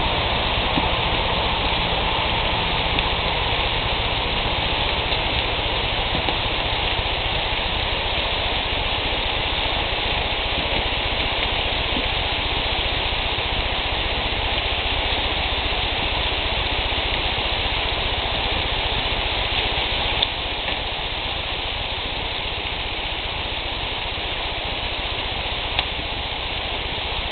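Steady sizzling hiss of frozen bacon-wrapped quail cooking on a grill, over a steady low rumble.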